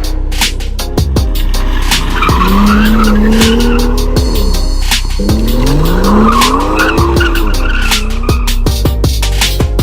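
BMW 340i's B58 turbocharged straight-six revving up and falling back twice while the rear tyres squeal in a drift, with a hip-hop beat and heavy bass mixed underneath.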